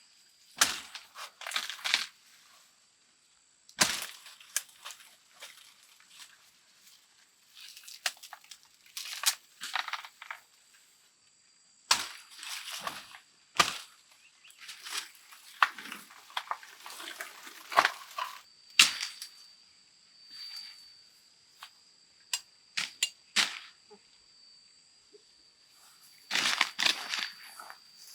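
Irregular sharp clacks and short rustles, as of goods being handled, over a faint steady high-pitched whine.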